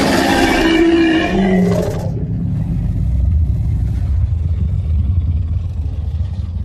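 Monster roar sound effect: a loud pitched roar for about two seconds that trails into a long, low rumble, which starts to fade near the end.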